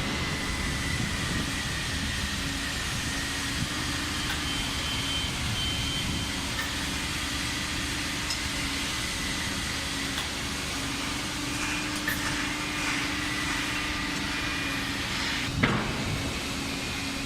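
Electric crane hoist running with a steady hum and low drone, over continuous workshop machinery noise; a single sharp knock comes near the end.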